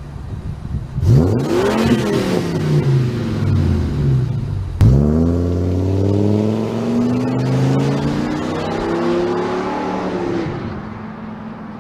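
Ford Econoline van's V10 engine revving as the van pulls away from a standstill and drives past, with an abrupt jump in pitch about five seconds in. It then accelerates away, pitch climbing steadily, and fades near the end.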